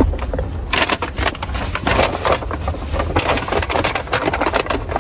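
Brown paper takeout bag rustling and crinkling as a hand rummages inside it, a dense run of irregular crackles over a low steady hum.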